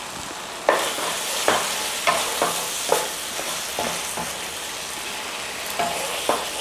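Thick chicken curry sauce sizzling in a frying pan as a wooden spatula stirs it, scraping the pan in a string of short strokes. The sizzle starts just under a second in.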